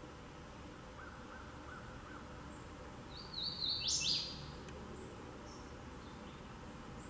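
Male hooded warbler singing one loud, clear song of about a second, a quick row of whistled notes ending in louder downward-sweeping phrases, about three seconds in.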